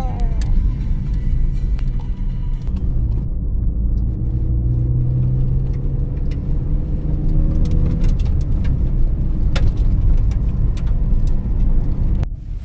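Car engine and road noise heard inside the cabin while driving: a steady low rumble whose engine pitch slowly rises and falls.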